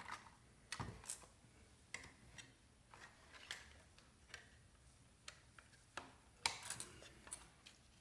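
Scattered light clicks and taps of plastic Synology drive trays and hard drives being handled on a stone countertop, with a louder cluster of knocks about six and a half seconds in.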